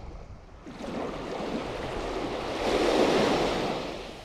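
Small waves breaking and washing up a sandy beach, the rush swelling about a second in, loudest near three seconds, then fading. A low wind rumble on the microphone runs under it.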